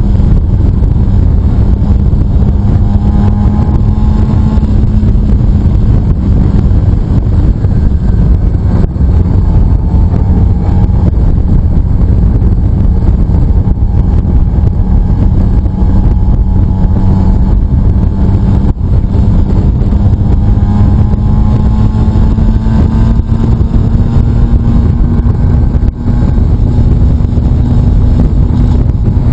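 Aprilia RS 125's two-stroke single-cylinder engine running at a steady cruise, heard from on the bike under heavy wind buffeting on the microphone; the engine pitch rises slightly in the last few seconds.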